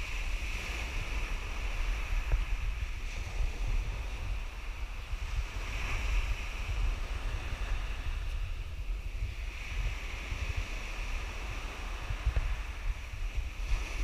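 Small waves washing up a sandy shore, the hiss of the surf swelling and fading every four to five seconds, with wind rumbling on the microphone.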